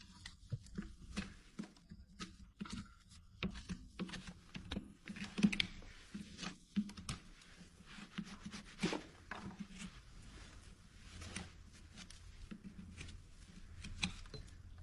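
Hoof trimming tools working on hoof horn: a run of irregular scrapes and sharp clicks with no steady rhythm, over a low steady hum.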